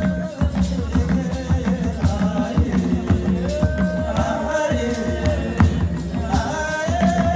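Traditional Rwandan music: a group of voices singing a chant-like melody over a steady drum rhythm.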